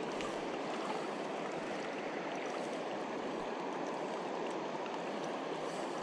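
Steady rushing of river current flowing past.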